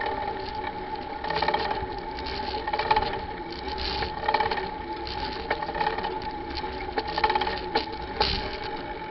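Rattling and clicking of a bike and its handlebar camera mount while riding on pavement, with several sharp knocks as it jolts over bumps, over a steady high whine.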